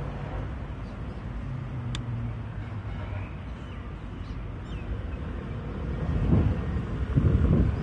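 Outdoor ambience: a steady low hum of a running vehicle engine, with a faint click about two seconds in and low rumbling swells growing louder over the last two seconds.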